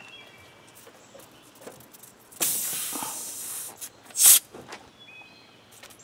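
Compressed air hissing out of a punctured tubeless lawn-tractor tire as the reaming tool is pulled from the hole, for a little over a second starting about two seconds in, then a second, shorter hiss about four seconds in.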